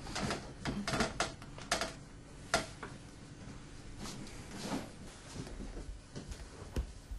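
A series of light knocks and clicks from handling and movement in a small room, most of them in the first three seconds, over a low steady hum.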